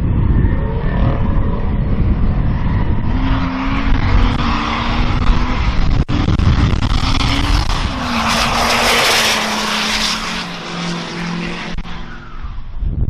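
Turbo-diesel drag-racing truck engine running loud, its pitch rising and falling as it revs. A loud rushing hiss swells over it from about eight to ten seconds in.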